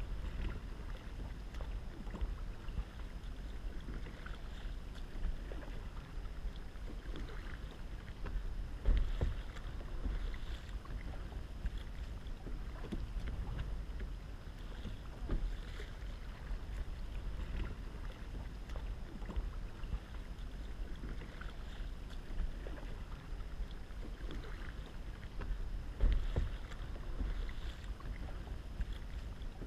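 Kayak paddling on calm water: a double-bladed paddle dipping and splashing at an unhurried, even pace, with water washing along the sit-on-top kayak's hull and a low wind rumble on the microphone. Twice there is a louder low thump.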